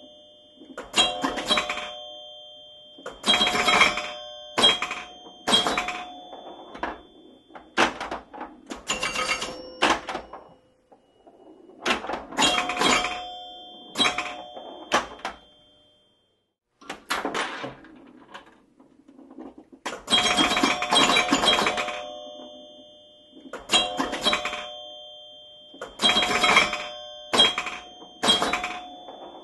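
Pinball machine in play: irregular clusters of sharp mechanical clacks with ringing bell-like chimes, a brief lull about halfway through before the hits and chimes resume.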